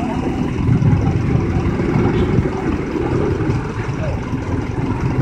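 Busy roadside noise: a vehicle engine running amid the chatter of a crowd of onlookers.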